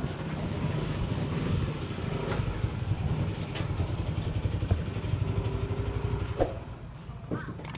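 An engine idling with a low, steady rumble, with a few light clicks and knocks.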